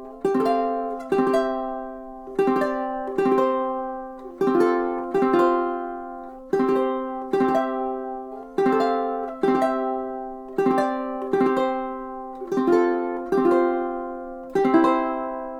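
Millar PO-J jumbo tenor ukulele playing chords, each struck sharply and left to ring and fade, about one a second. The last chord, near the end, is left ringing.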